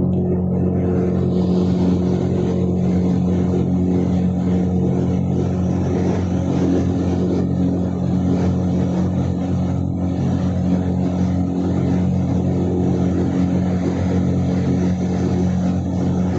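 Mine ventilation fan running steadily: a constant drone with several steady hum tones.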